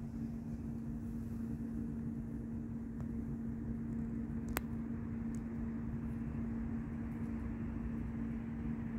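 A steady mechanical hum at a constant pitch, with low rumble beneath it, and a single sharp click about four and a half seconds in.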